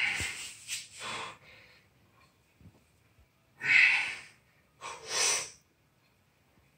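A lifter's forceful, hissing exhales while pressing a heavy barbell set on the bench. There is a long breath at the start, then two more short ones about four and five seconds in.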